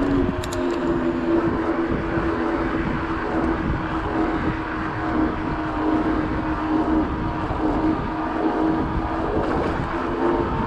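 Wind rumbling on the microphone and the steady hum of a 29er hardtail mountain bike's knobby Schwalbe Nobby Nic tyres rolling along at speed, with a few faint ticks about half a second in.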